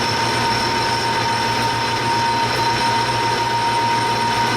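Metal lathe spinning aluminum tubing at about 755 RPM while a shaving tool bit is fed slowly by hand along it: a steady machine whine with a high, unchanging tone over a constant hum.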